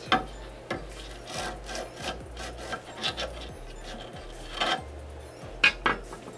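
Steel flathead screwdriver rubbed and scraped along gritty scooter grip tape at the deck's edges: an irregular, sandpaper-like scratching in short strokes, with a couple of sharper scrapes near the end. This presses and scores the tape against the deck edge so a blade can cut through it cleanly.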